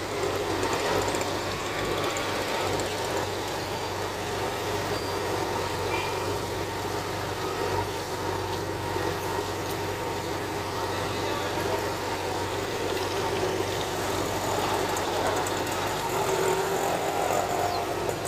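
A diesel engine idling steadily, a constant low hum with no revving or load changes.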